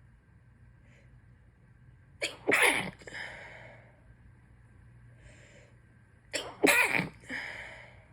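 Two sneezes from a person with a head cold, about four seconds apart. Each one starts with a quick catching burst, then the loud sneeze, then a breathy release that fades.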